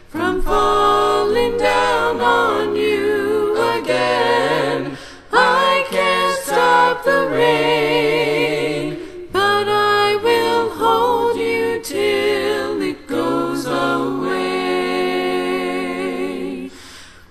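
A cappella voices singing in close four-part harmony, without instruments, in sung phrases of a few seconds each separated by brief breaks.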